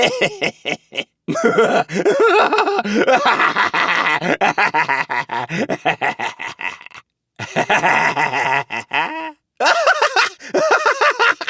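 A string of exaggerated cartoon-style character laughs, one clip after another, each a run of quick pulsing 'ha' sounds that bend up and down in pitch. Short silences separate the clips about a second in, about seven seconds in and near nine and a half seconds.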